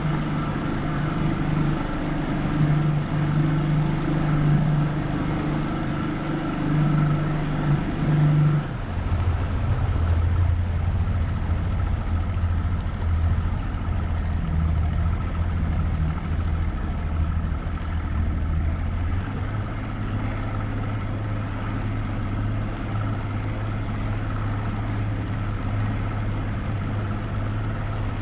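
Motorboat engine running steadily; about nine seconds in its pitch drops as the engine slows, and it carries on at a lower steady speed.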